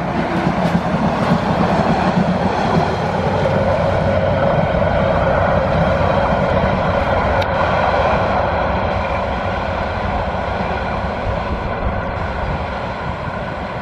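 Sonar Bangla Express passenger train running on the rails with a steady, dense rumble of wheels and coaches, slowly fading over the last several seconds as it moves away.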